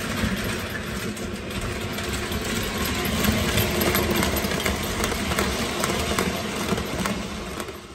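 Postwar Lionel O gauge train, a 671 turbine locomotive pulling metal passenger cars, running on three-rail track past the microphone. It makes a steady rumble of motor and wheels with many light clicks, dying away near the end.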